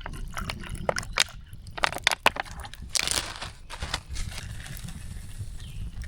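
Dry leaves and sticks crunching, with several sharp snaps in the first half and a longer burst of crunching about three seconds in.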